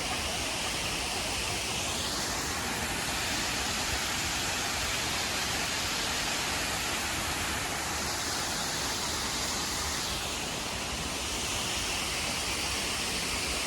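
Waterfall rushing: a steady, even hiss of falling water whose brightness shifts slightly a few times.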